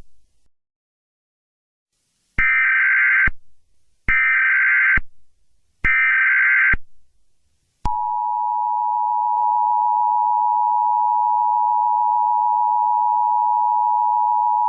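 Emergency Alert System tones: after a short silence, three brief buzzing bursts of SAME header data, each just under a second, then the steady two-tone attention signal, which starts about eight seconds in and holds.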